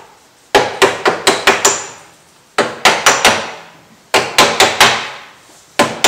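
A hammer beating the bent sheet-steel inner wing structure of a Toyota Corolla back into shape, with sharp, ringing metal blows. The blows come in quick runs of four to seven, with short pauses between runs, and two more near the end.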